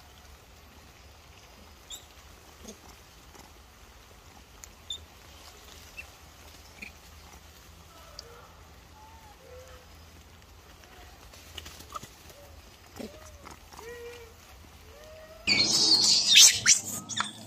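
Faint, short rising-and-falling coos from a young macaque, several in the second half, with scattered small clicks. Near the end comes a loud, brief burst of rustling noise.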